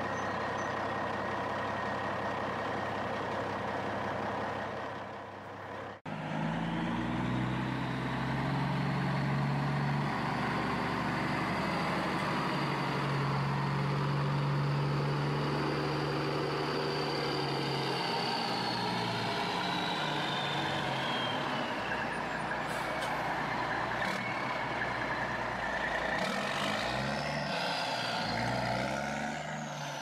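Heavy vehicle engine sounds, edited together in pieces: a hard cut about six seconds in brings a deeper, louder running engine, and a high whine falls slowly in pitch in the middle.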